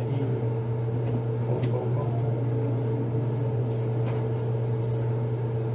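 Steady low hum of a running kitchen appliance motor, with a few faint clicks.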